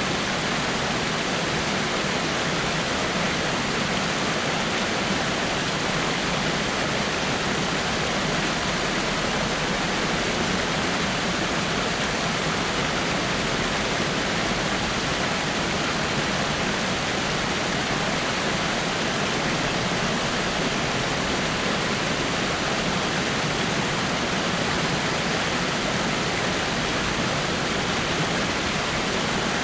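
Small rock waterfall splashing onto rocks: a steady, even rush of falling water that does not change.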